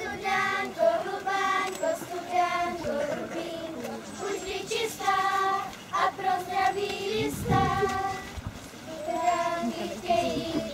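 A group of young girls singing together without accompaniment, in phrases of held notes with short breaks between them.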